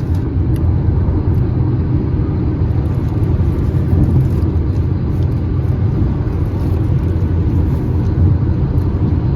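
Road noise inside a moving car's cabin: tyres on the road and the air conditioning blowing, a steady low rumble.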